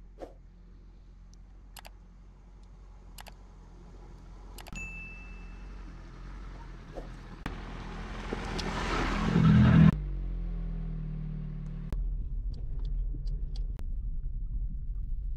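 An engine running with a steady low hum that builds to a loud, noisy surge about ten seconds in, which drops away abruptly, leaving the engine running steadily. A few sharp clicks sound in the first half.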